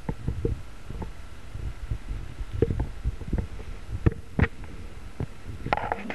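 Irregular low thumps and rubbing, with scattered sharp clicks, from a parrot's feathered body and beak brushing and knocking against the microphone at point-blank range; the strongest knocks come about four seconds in.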